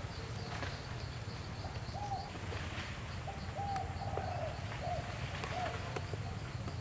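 A run of about six short coo calls, each note rising and falling in pitch, starting about two seconds in and stopping near the end, over a steady low background hum.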